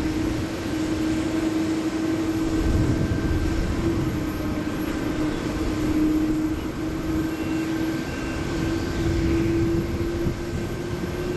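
Jet airliner engines running: a steady drone with a constant hum through it.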